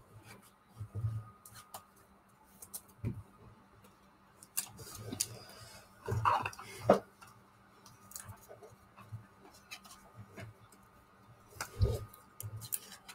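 Trading cards being handled: cards slid off a stack and flicked one by one, with scattered light clicks and soft brushing, and a louder knock about a second before the end.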